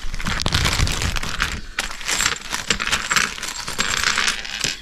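Small Clue game weapon pieces clinking and rattling together as they are handled and shaken in a plastic bag, with the bag rustling.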